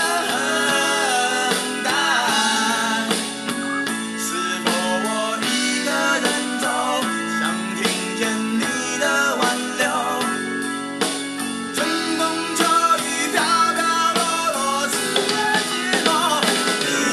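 A song with a singer over guitar and drums.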